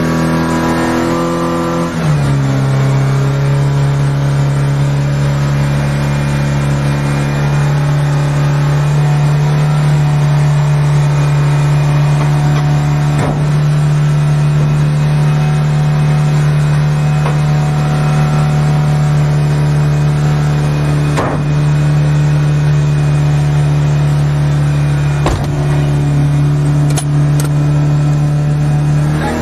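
Car engine running just after it finally started following repeated failed cranking. Its revs drop about two seconds in, then it keeps running steadily, with a few faint clicks.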